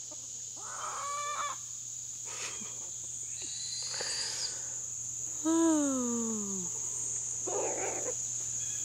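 Chickens clucking in short calls, the loudest a single call that falls in pitch about five and a half seconds in, over a steady high-pitched insect drone.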